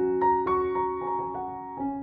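Gentle piano background music, single notes struck about four times a second over held lower notes.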